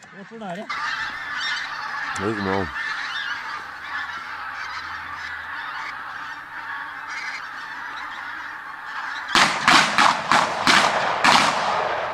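A large flock of geese honking continuously, many calls overlapping. The honking becomes much louder and busier about nine seconds in.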